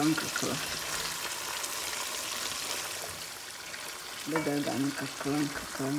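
Chicken drumsticks sizzling in oil and their juices in a pot, a steady hiss, while a spatula stirs and turns them. A person's voice is heard briefly about four seconds in.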